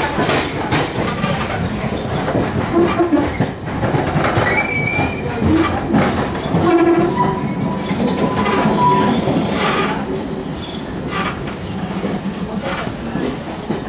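London Underground C Stock train running into a station, heard from inside the carriage: wheels clattering over rail joints and points, with several short wheel squeals at different pitches through the middle. The running noise eases off near the end as the train slows at the platform.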